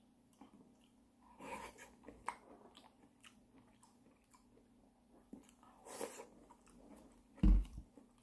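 A person chewing soft fruit chunks, with wooden chopsticks tapping in a plastic cup. A loud dull thump about seven and a half seconds in as the cup is set down on the desk.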